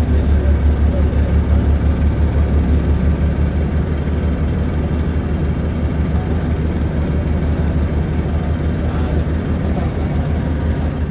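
Steady low rumble of a running vehicle engine with an even pulsing throb, a little heavier in the first few seconds.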